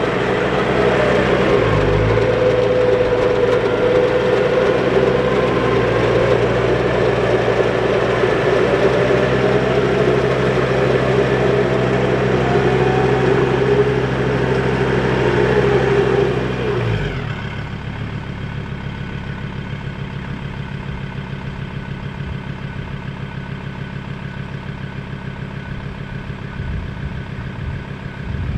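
Electric vehicle-recovery winch on a Ford Ranger running under load, a strong wavering whine over the vehicle's engine running. About two-thirds of the way through, the winch stops with a falling whine, leaving the engine idling.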